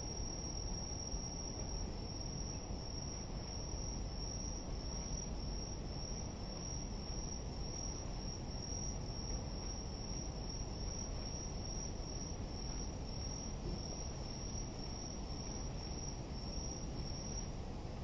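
A night insect, cricket-like, calling in a high, steady trill broken into short regular pulses, which stops shortly before the end, over a steady low background rumble.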